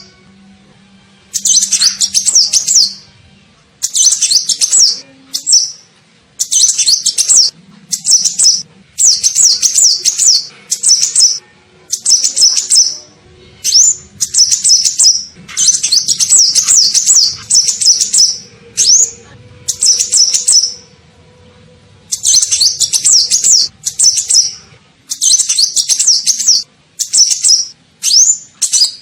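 Sunbird (kolibri ninja) song played as a bird-trapping lure: rapid, high, twittering chirp phrases about a second or two long, repeated over and over with short pauses between them.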